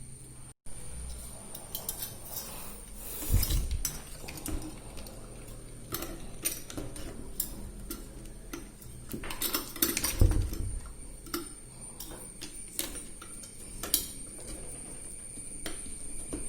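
Irregular small clicks and taps of hard plastic and metal parts being handled, with a few heavier knocks, as a CPU cooler is worked onto the processor.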